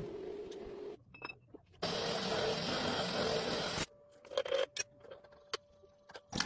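Small workshop handling sounds, scattered light clicks, taps and rubbing of tools and metal parts, broken by abrupt cuts between stretches of steady hiss and quieter stretches.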